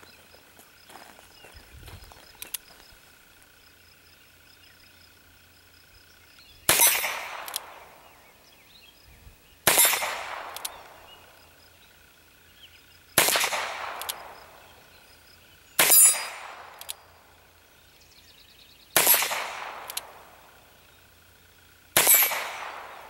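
Six single shots from a Ruger New Model Single Six revolver with a 9.5-inch barrel, firing .22 Long Rifle. The shots are spaced about three seconds apart and each trails off over about a second.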